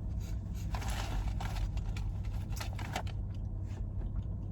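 Crinkling and rustling of a paper food wrapper being handled: a cluster of short, crisp, scratchy sounds in the first three seconds over a steady low hum.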